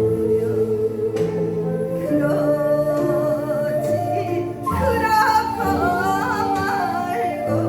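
Korean folk song (minyo) sung over instrumental accompaniment that holds steady notes; about five seconds in, the voice comes in strongly with a wide, wavering vibrato and ornamented turns.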